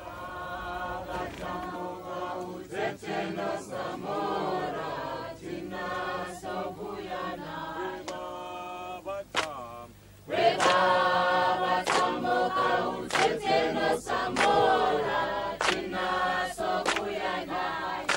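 A choir of many voices singing unaccompanied in harmony. The singing breaks off briefly about ten seconds in and comes back louder.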